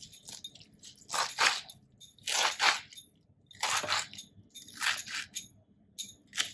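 Kitchen knife chopping blanched, squeezed-out spinach on a bamboo cutting board: five or six separate cuts, about one a second.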